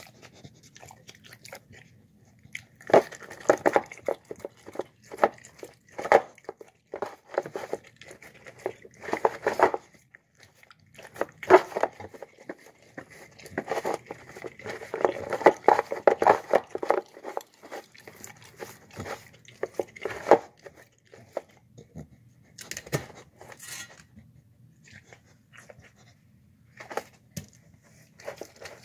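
Dog eating and licking the last of its food from a bowl: quick, wet chewing and licking clicks in two long bouts, then only a few scattered clicks near the end.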